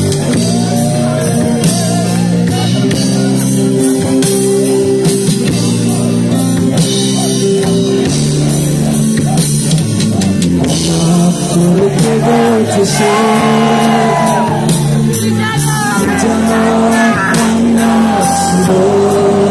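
Live rock band playing loudly through the hall's sound system, with keyboards and a full band beneath a singer's voice that comes to the fore in the second half.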